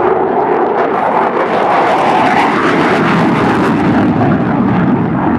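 F-16 fighter jet flying past with its single jet engine in afterburner: loud, steady jet engine noise.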